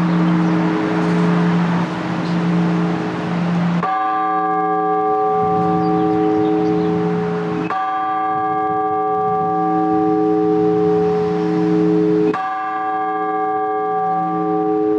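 Large Orthodox church bell tolled in slow single strokes (blagovest): three strikes about four seconds apart. Each strike rings on with a long, pulsing low hum. A rushing noise covers the first few seconds and stops at the first strike.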